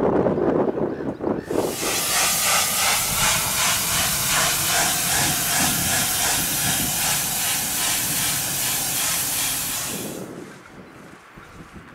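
Pressure washer jet spraying against the yacht's hull to blast off weed and fouling: a loud, steady hiss with a light regular pulse, starting about a second and a half in and cutting off about ten seconds in.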